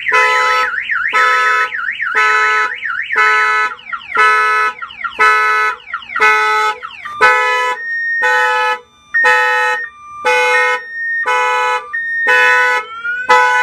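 Viper car alarm siren going off after a smack on the window. It cycles through its tones: a fast warble at first, then pulsed beeping about twice a second with a steady tone between the beeps later on, and a rising whoop near the end.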